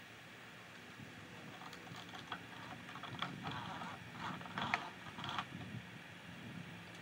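Vinyl gutter section creaking and clicking as it is pushed up into its hangers along the roof edge: a run of short scrapes and clicks starting a couple of seconds in, the loudest a little after the middle, then dying away.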